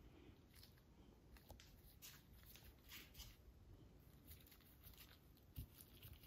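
Near silence, with faint scattered rustles and light taps as gloved hands press a contact-cemented Formica strip down onto a wooden bow-form edge. There is a soft thump about five and a half seconds in.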